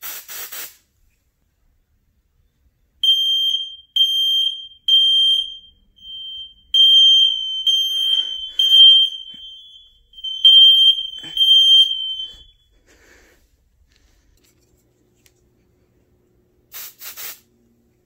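A short hiss of aerosol smoke-detector test spray, then a ceiling smoke alarm sounding high-pitched beeps: three beeps about a second apart, a pause, then more beeps overlapping at two slightly different pitches as more than one alarm sounds. The beeping stops about twelve seconds in, and another short spray hiss comes near the end.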